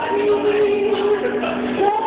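A woman singing into a microphone over backing music, holding long notes with a short slide in pitch near the end.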